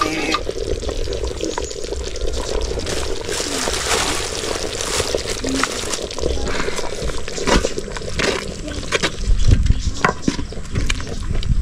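Water pouring and sloshing as banana leaves are washed by hand, with scattered short clatters and knocks.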